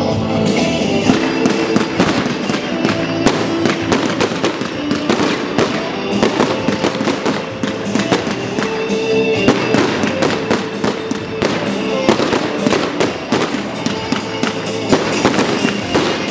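Fireworks display going off in rapid, dense volleys of bangs and crackles, with music playing alongside.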